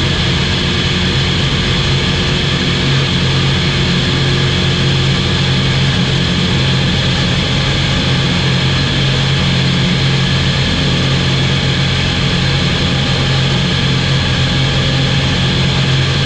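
SportCruiser light aircraft's piston engine and propeller running at steady power in flight: a continuous, unchanging hum with a strong low note, over a broad rush of noise.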